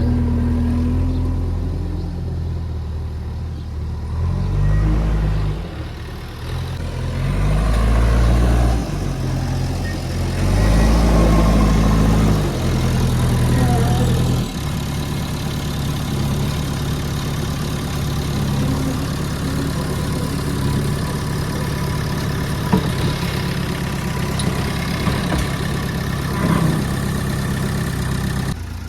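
Heavy diesel engine of a backhoe loader or tractor at work, revving up and down in several surges, then settling to a steady run about halfway through.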